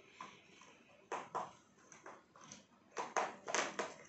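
Short scratchy strokes of colouring on paper, about ten of them, sparse at first and coming quicker and stronger in the last second.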